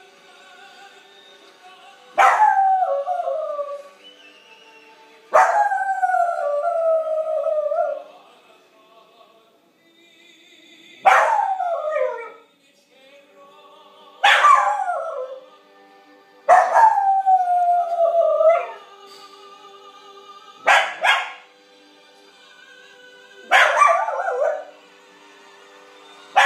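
Tibetan Terrier howling along to opera music: about seven drawn-out howls, each starting high and sliding down in pitch, some lasting two or three seconds, with the opera playing faintly between them.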